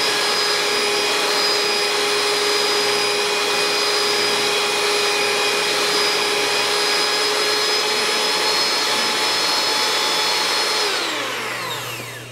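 Oster electric hand mixer running steadily, its motor whining as the beaters whip instant coffee, sugar and hot water into dalgona foam. Near the end it is switched off and the whine falls in pitch as the motor spins down.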